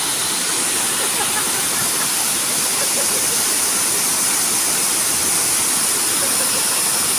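Waterfall: a steady, loud rush of falling water, unbroken throughout.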